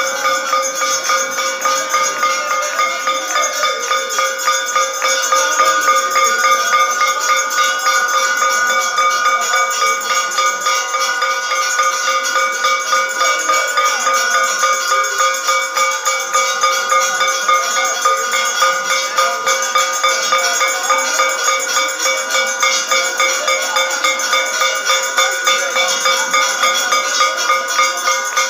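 Temple hand bell rung steadily and continuously, about three strikes a second, accompanying an aarti lamp offering.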